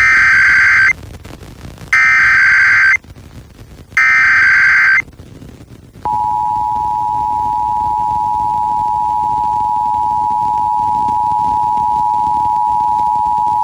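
Emergency Alert System alert tones from an FM radio broadcast. First come three identical bursts of the SAME digital header, about a second each and a second apart, harsh warbling data tones that encode the alert. About six seconds in, the steady two-tone EAS attention signal starts and holds, marking the start of a Required Monthly Test.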